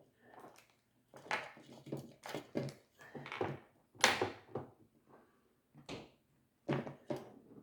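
Small plastic toy gears and housing parts being handled and fitted onto their pegs: an irregular run of clicks, knocks and rubbing, the loudest knock about four seconds in.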